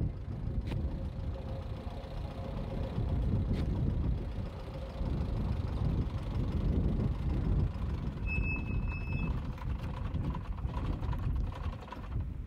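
Beijing BJ212 jeep's engine running with a low rumble as it drives along a dirt track, easing off near the end as the jeep comes to a stop. A short high steady tone, broken once, sounds about eight seconds in.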